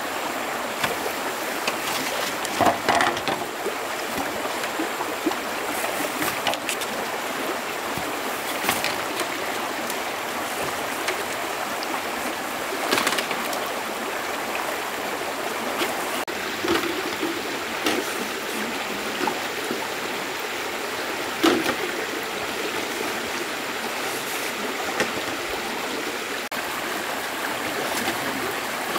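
Stream water running steadily, with a few short, louder sounds now and then.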